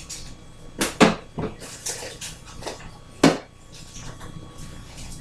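Kitchen clatter: a few sharp clinks and knocks of dishes and utensils being handled, the loudest about a second in and a little after three seconds.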